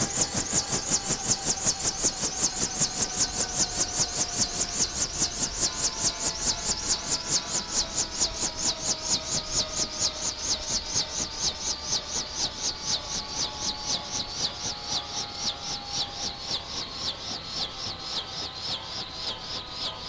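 Bell 212 helicopter winding down after shut-off: its two-blade main rotor swishes in a steady pulse of several beats a second that slowly spaces out and fades, while the turbine whine glides down in pitch.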